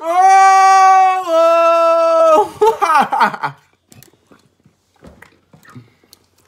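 A voice singing two loud held notes, the second a step lower, then a short wavering slide that dies away about three and a half seconds in. Faint knocks and handling sounds follow.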